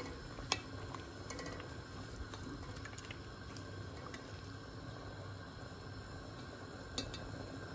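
A pot of water boiling with leafy greens and zucchini slices being blanched in it, while a plastic spoon stirs them. The spoon knocks sharply against the pot about half a second in and again near the end.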